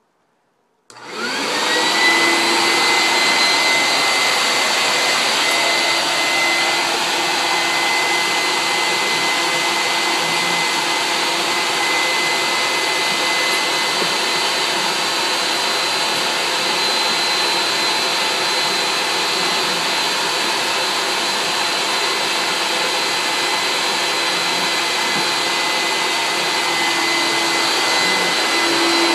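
Vacuum cleaner switched on about a second in, its motor spinning up with a rising whine and then running steadily with a high whine over the rush of air.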